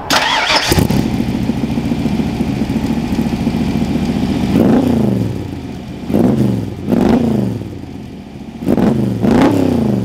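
Roush Racing 392 small-block V8 of a Superformance Cobra replica, heard through its side-exit exhaust. It starts up with a short flare of revs, idles steadily for a few seconds, then has its throttle blipped about five times, each rev rising sharply and falling back toward idle.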